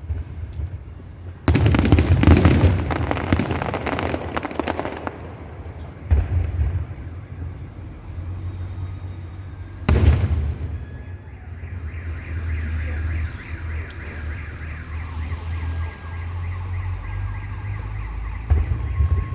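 Festive fireworks: a dense burst of crackling salvos about a second and a half in that lasts a few seconds, then a single loud bang near the middle. In the second half a repeating electronic alarm warble sounds over a low rumble.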